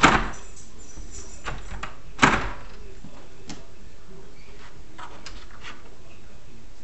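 A cat pulling down and letting go of a lever door handle: the handle and latch clack loudly twice, about two seconds apart, followed by several lighter clicks and knocks as the door is worked open.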